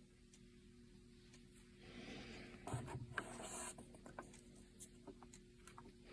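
Mostly near silence, with faint rubbing and a few light clicks from about two to four seconds in.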